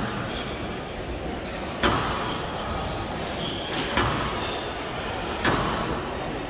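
Squash ball impacts during a rally on a glass court: three sharp cracks about two seconds apart, over a steady murmur from the audience.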